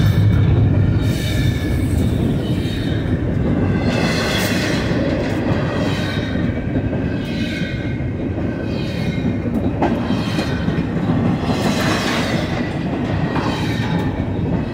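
BNSF double-stack intermodal well cars rolling past at close range: a steady heavy rumble of steel wheels on rail. Higher-pitched wheel squeal swells up now and then, and there is a sharp clack a little before ten seconds in.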